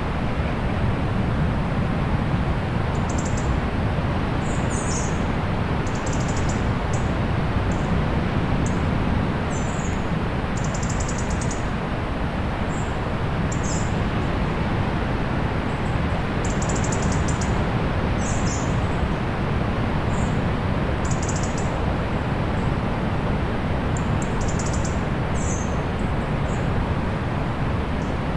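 Distant sea ambience: a steady, low hum of surf. Short, high bird chirps come every second or two over it.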